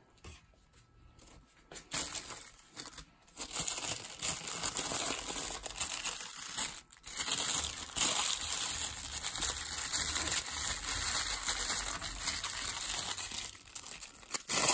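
Butter paper crinkling and rustling as it is folded and wrapped around a paratha roll, starting about two seconds in.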